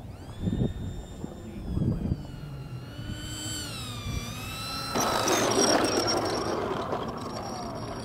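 Electric ducted-fan whine of a radio-controlled jet on its landing approach, the pitch dipping and rising as it comes past. About five seconds in, a louder rush of noise as it touches down and rolls out on the asphalt runway, the whine falling away.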